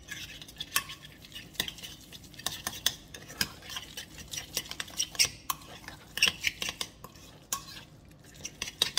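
Metal spoon stirring tuna salad in a ceramic mug, with many quick, irregular clinks and scrapes against the sides.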